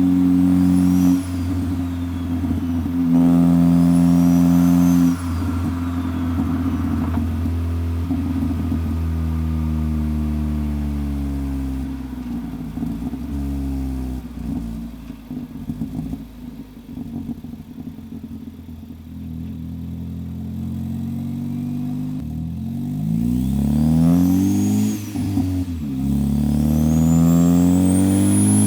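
Turbocharged Ford Focus ST engine under way: it holds steady pitch for several seconds, falls away as the car slows, runs low and quieter through the middle, then climbs again under acceleration near the end. A high whine rises and falls briefly a few times over it.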